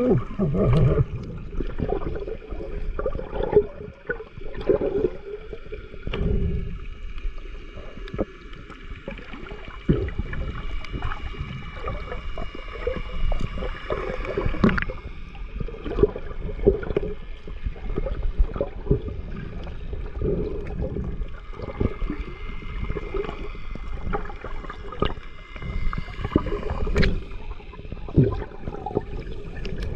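Underwater sound through an action camera's waterproof housing: muffled water movement and bubbling from a swimmer, with irregular low knocks and swells. A faint steady whine sits over it through the middle stretch.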